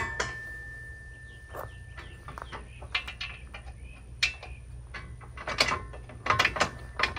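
Steel grapple hardware being worked by hand: a sharp metal clank right at the start that rings on for a couple of seconds, then scattered clicks and knocks as the cylinder and its pin are worked into line on the mount.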